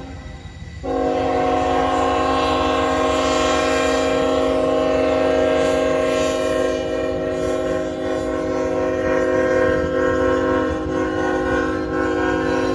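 Norfolk Southern diesel locomotive's air horn blowing a chord. It breaks off briefly right at the start, then sounds again under a second in as one long held blast, over the low rumble of the passing train.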